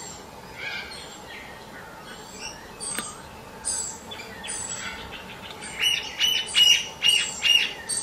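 Birds chirping and singing, with a quick run of about six loud repeated notes near the end.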